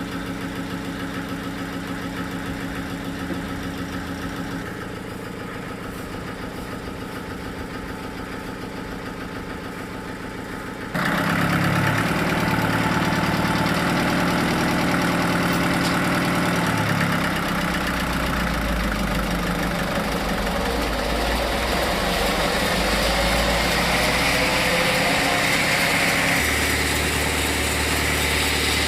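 Sawmill machinery running with a steady engine hum. About eleven seconds in, it turns suddenly louder and noisier and stays that way.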